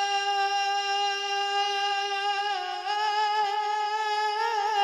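A man's singing voice holding one long, steady sung note of a naat, unaccompanied and amplified through a microphone, lifting slightly in pitch near the end.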